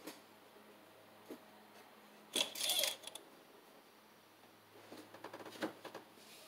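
Light clicks and a short scraping rustle from the engine oil dipstick being pulled out of its tube under the hood to check the oil level, with a few more small handling clicks near the end.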